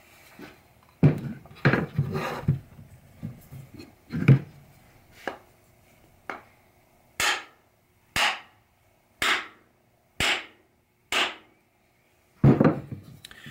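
A new hickory handle being seated in a steel ball peen hammer head with a wooden mallet and knocks against the bench. First come irregular heavy wooden knocks, then five sharp strikes about a second apart, and one more heavy knock near the end.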